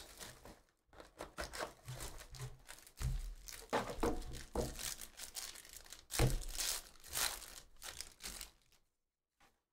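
Plastic shrink-wrap and a foil trading-card pack wrapper crinkling and tearing as a hobby box and pack are opened by hand, with a couple of dull knocks from handling. It stops shortly before the end.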